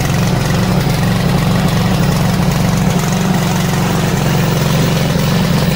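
Small gasoline engine on a remote-control crawler mower, running steadily at idle just after being started with the control-panel starter button.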